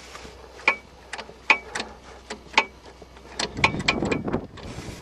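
A tool striking the starter motor of a 1991 Ford Taurus from underneath: a series of about ten sharp metal knocks, several ringing briefly. This is the old trick of hitting a starter that won't turn the engine to free it up.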